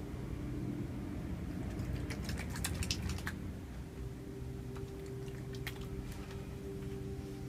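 Hands slick with massage oil rubbing together and smearing oil, with a cluster of quick clicks and smacks about two to three seconds in and a few more later.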